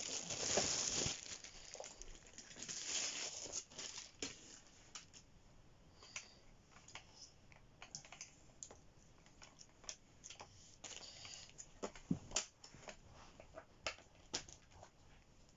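Plastic bag crinkling as a laminator is pulled out of its wrapping, then scattered light clicks and taps of its plastic body and guillotine arm being handled, with one sharper click about twelve seconds in.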